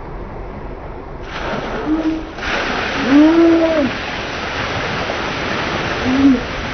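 A skip-load of water dumps from a tipped skip and pours down in a loud rushing splash that begins about a second in and grows heavier soon after, with a truck engine running beneath it at first. Short rising-and-falling whooping shouts break over the rush a few times.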